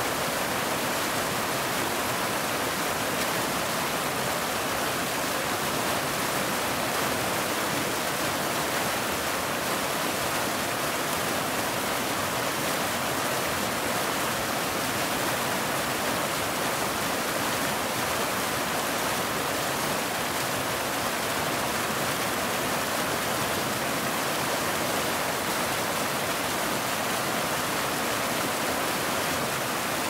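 A small waterfall of a mountain stream running over rocks: a steady rushing of water, mostly hiss with little low rumble, unchanging throughout.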